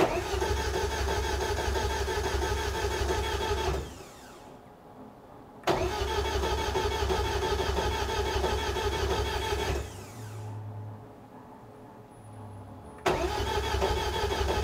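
Electric fuel pump running in three runs of about four seconds each, a steady whine over a low hum, as the newly plumbed fuel system is primed and checked for pressure. It stops about four seconds in, starts again, stops near ten seconds and starts once more near the end.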